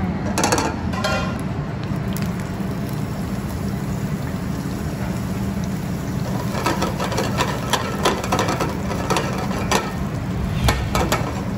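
Garlic and onion sizzling in oil in a stainless steel skillet on a gas burner, over a steady low hum. From about six seconds in come repeated clinks and knocks as the skillet is tossed and scraped on the grate.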